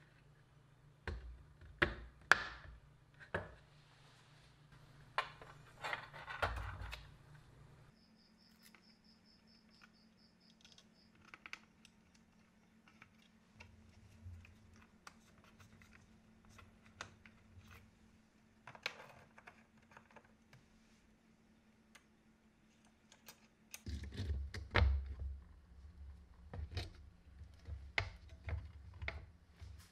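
Handling noises of a keyboard's plastic case and cable parts being fitted together: scattered clicks, taps and knocks. The clicks bunch up around the first few seconds, near six seconds, and again from about twenty-four seconds on.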